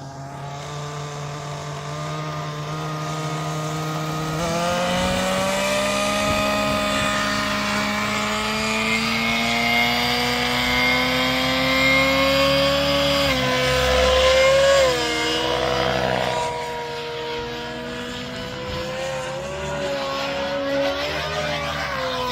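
OS 91HZ two-stroke nitro engine of a Goblin Black Nitro RC helicopter running. It holds steady at first, steps up about four seconds in and climbs slowly in pitch and loudness as the rotor speed builds. Past the middle the pitch dips and wavers, then settles.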